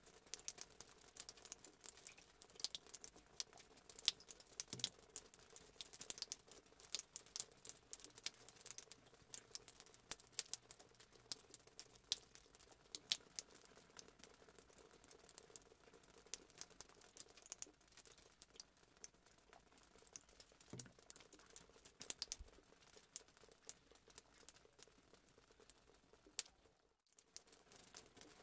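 Very quiet, with faint, irregular small clicks and crackles scattered throughout, several a second. The sound drops out briefly near the end.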